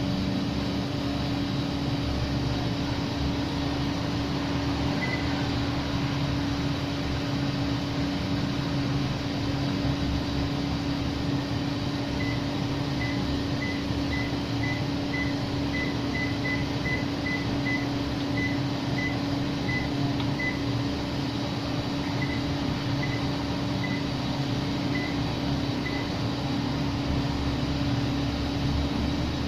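Panasonic split air conditioner running with a steady hum. Short high beeps sound once about five seconds in, then repeatedly, roughly one or two a second, from about twelve to twenty-six seconds in.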